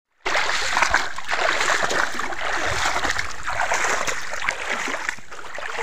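Hooked snakehead fish thrashing at the water surface on a fishing line, splashing continuously.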